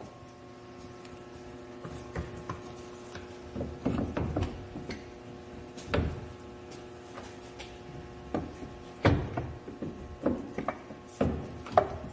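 Scattered knocks, clunks and short scraping as a front differential carrier assembly is shifted by hand against the wooden blocks that hold it up, over a faint steady hum.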